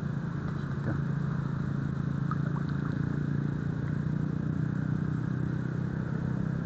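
A steady, low engine hum with an even background rush that does not change, and a few faint ticks over it.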